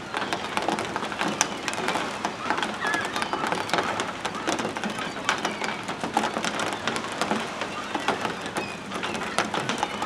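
A large feeding flock of gulls, black-headed gulls among them, calling over one another in a dense clamour, with constant wing flapping and splashing in shallow water as they compete for food thrown from a bucket.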